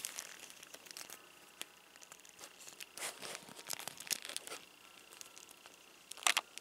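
Faint scattered clicks and rubbing of small hard plastic parts being handled, as a toy harpoon gun is worked into an action figure's hand, with a sharper click near the end.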